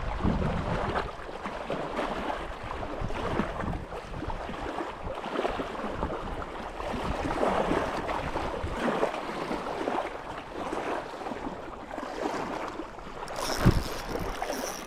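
Wind gusting on the microphone over the lapping and splashing of choppy lake water, with one sharp knock near the end.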